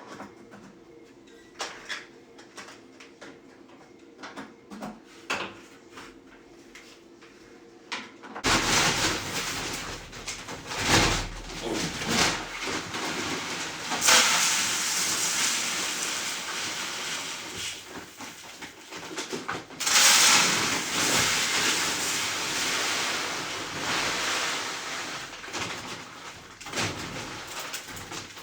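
Water rushing into a 5-gallon bucket waterer, starting suddenly about eight seconds in after a few light clicks and knocks, with louder surges partway through.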